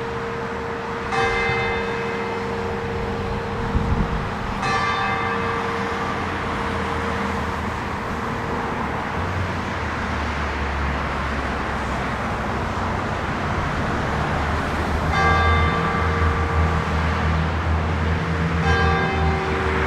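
Large church bell, the 750 kg bell tuned to g', struck by a hammer rather than swung. There are four strokes, two near the start about three and a half seconds apart and two more near the end, and the bell's hum rings on between them. A low traffic rumble builds through the second half.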